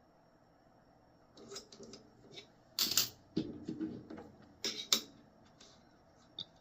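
Coins being handled: a run of sharp clicks and light rustling starting about a second and a half in, with the loudest clicks near three seconds and near five seconds.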